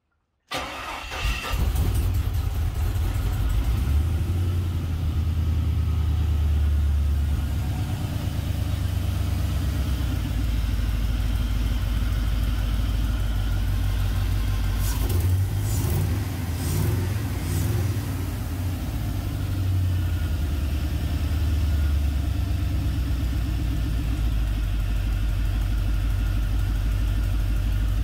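Swapped GM 5.3-litre LS V8 cranks and fires about half a second in, then idles steadily. It is started through a newly wired ignition switch.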